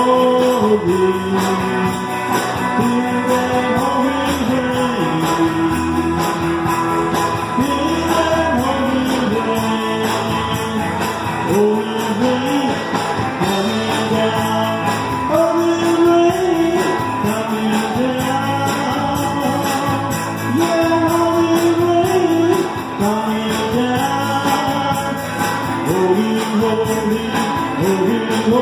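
Live band music: electric guitars playing a moving melody over a steady jingling percussion beat.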